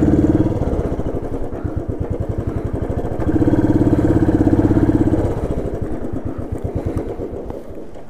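Motorcycle engine running with a rapid, even beat. It pulls harder and louder briefly at the start and again about three seconds in for some two seconds, then eases off and fades toward the end.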